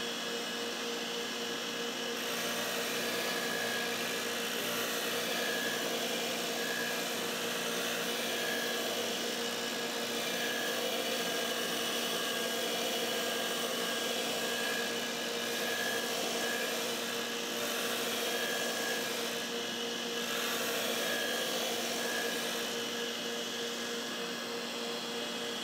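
MAG-8200 lawn mower blade sharpener running as a 2-inch abrasive belt grinder, with a steady motor hum, while the cutting edge of a 1/4-inch thick high-lift mower blade is ground on the belt. The grinding of steel on the belt comes and goes as the blade is slid back and forth along the edge.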